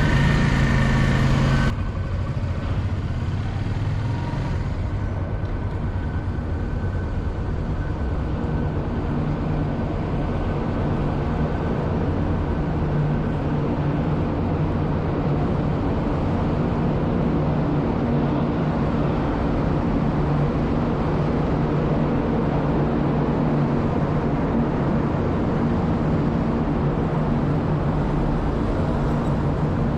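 An engine running steadily with a low drone. A louder sound carrying steady tones cuts off abruptly just under two seconds in.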